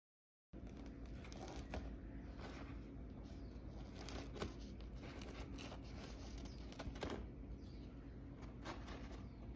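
Knife tip slitting the sides of freshly baked choux pastry puffs, the crisp, dry shells crackling as the blade goes in, several separate times.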